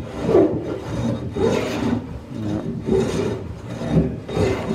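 Hand plane cutting along a wooden boat deck beam to fair it, in four rasping strokes about a second and a quarter apart.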